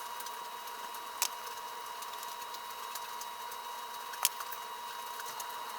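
Faint steady electrical whine over a low hiss, with two small sharp clicks, about a second in and again about four seconds in.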